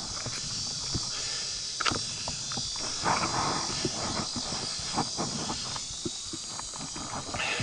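Footsteps of hikers crunching along a trail, irregular and frequent, over a steady high insect drone.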